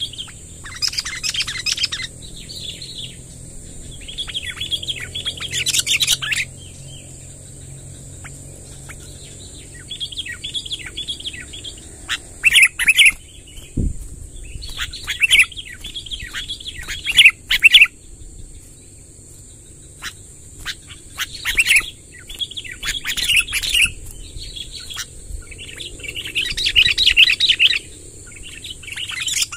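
Sooty-headed bulbuls (kutilang) singing in repeated short bursts of quick chirping phrases a second or two long, a few seconds apart. This is the long rolling 'ngerol' song used as a lure call to draw wild bulbuls. A single knock sounds about halfway through.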